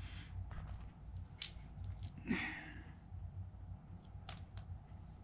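Handling noise from a plastic drone remote controller being put back together: a few small sharp clicks and taps of its case and parts, with one brief louder rustle about two seconds in, over a low steady hum.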